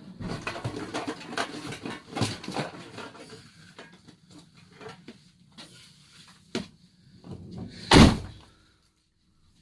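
A run of knocks and clatter, thinning out after about three seconds, then one loud door slam about eight seconds in.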